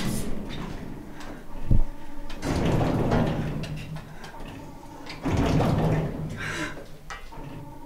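Elevator doors sliding, heard from inside the lift: a sharp knock about two seconds in, then two longer sliding rumbles.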